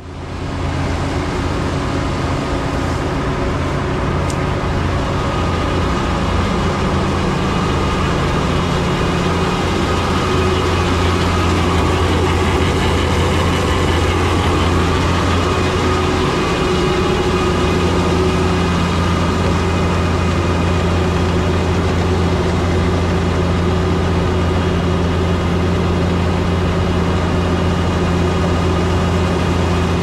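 Heavy diesel-powered harvest machinery running steadily: a constant low engine drone with several steady tones above it, unchanged throughout.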